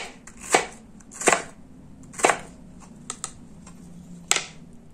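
Crinkle-cut blade chopping down through a raw potato onto a cutting board: three sharp cuts about a second apart, then a few light clicks and one more knock near the end.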